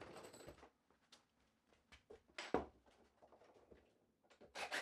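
Mostly quiet room tone with a few faint clicks and one short knock about two and a half seconds in; a louder sound begins right at the end.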